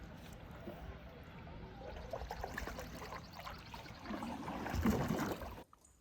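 Canoe paddles dipping and pulling through lake water, with splashing and dripping; the water sound swells twice, about two seconds in and again near five seconds, then cuts off suddenly near the end.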